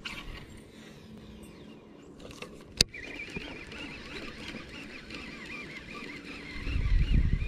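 Fishing rod handled and cast from a kayak: a single sharp click about three seconds in, then a loud low rumble near the end as the rod swings overhead, over a faint wavering high tone.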